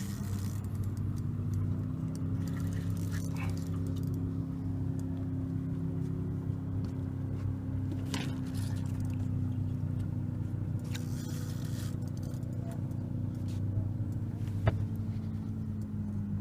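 Boat motor running steadily at raised revs, its pitch dropping back near the end, with a few faint clicks and one sharp knock near the end.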